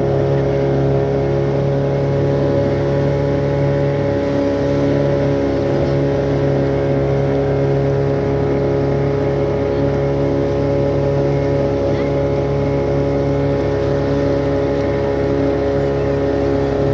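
Motorboat engine running at a steady speed, a constant drone that holds one pitch without revving up or down.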